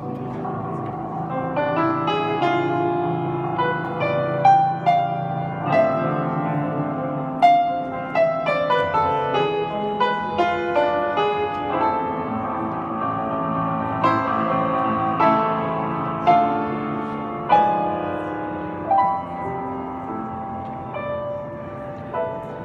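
Grand piano played solo: a melody of struck notes ringing over sustained lower chords.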